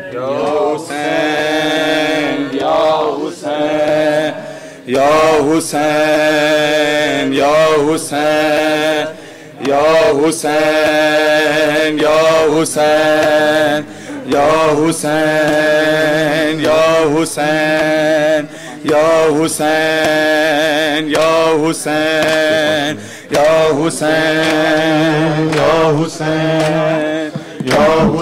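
Male voices chanting a noha, a Shia mourning lament, through a microphone: a slow melody sung in repeated phrases of a second or two, each followed by a short break.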